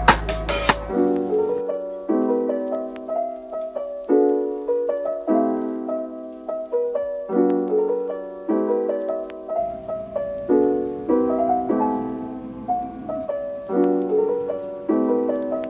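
Background music: a piano playing soft chords in a slow, even rhythm, a new chord about every second. A couple of sharp knocks sound in the first second.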